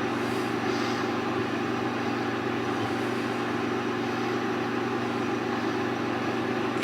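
Steady background hum with a few fixed tones over an even hiss, unchanging throughout, like a running fan or other machine.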